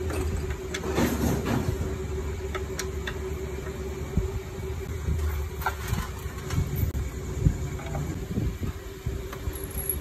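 Light metal clinks and knocks of hand tools and parts on a bare engine during timing work, over a steady hum and low rumble, with a sharper knock about seven and a half seconds in.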